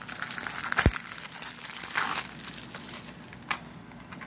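Plastic shrink wrap being torn and peeled off a DVD case, crinkling, with a sharp snap about a second in and another burst of crinkling about two seconds in.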